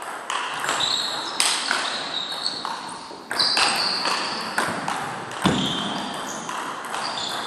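Table tennis rally: the celluloid-type ball clicking off rubber bats and the tabletop, about one to two sharp ticks a second, each ringing briefly in the sports hall. A heavier thump stands out about five and a half seconds in.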